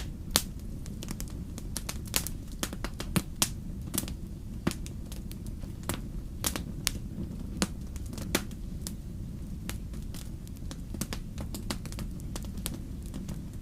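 Wood fire crackling: irregular sharp pops and snaps, several a second, over a low steady rumble.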